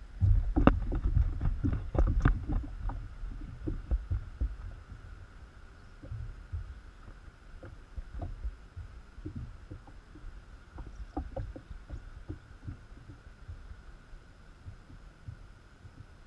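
Knocking and rattling from a camera mount on a kayak, with low thumps. It is loud and dense for the first few seconds, then thins to scattered knocks and clicks.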